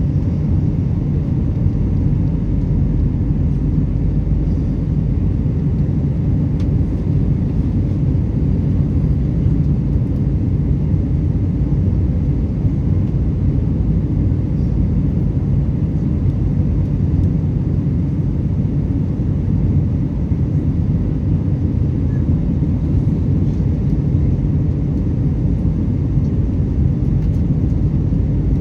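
Steady low rumble of engine and airflow noise inside an airliner cabin during descent, with no distinct events.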